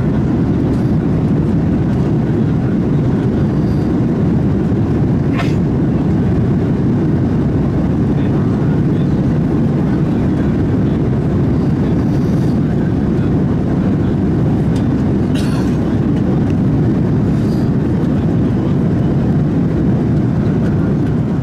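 Steady low roar inside the cabin of an Airbus A340-300 in flight: airflow and engine noise, unchanging, with a faint click about five seconds in.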